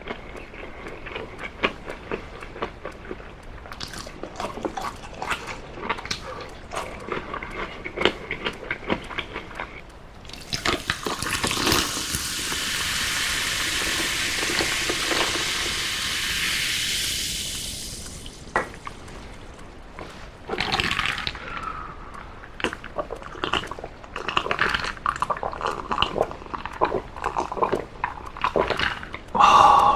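Soda poured from a can into a glass, running and fizzing loudly for about seven seconds in the middle. It is followed by gulps of the drink near the end, and chewing clicks come before it.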